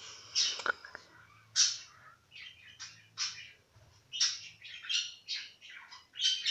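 A cut-open rubber stress ball and its sandy, slime-like filling squelching and squeaking as fingers squeeze and pull it apart: a rapid, irregular run of short squeaks.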